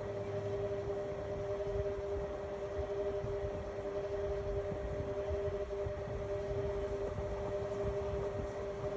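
Indesit MyTime EWE 71252 washing machine running, a steady two-note whine over a low rumble that holds even throughout.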